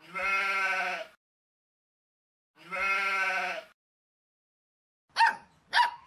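Sheep bleating: two long bleats, each about a second, a couple of seconds apart. Near the end come two short, sharp calls of another animal.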